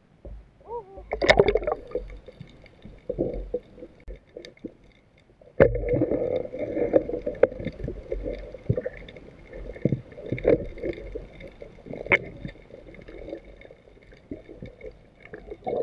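Water splashing and gurgling with irregular knocks. It is sparse at first and becomes denser and louder from about five and a half seconds in.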